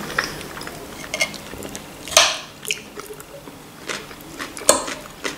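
Close-up chewing with small wet mouth clicks, and a couple of sharper clatters, one near the end, as a fork goes into food on a plate.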